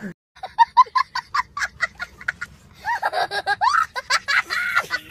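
A child laughing hard: a quick string of short high-pitched laughs, then longer squealing laughs that swoop up and down in pitch from about three seconds in.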